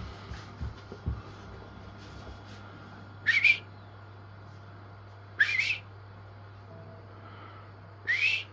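Three short rising whistles, a couple of seconds apart. A few soft knocks come in the first second, as the ball and paws bump the wooden floor.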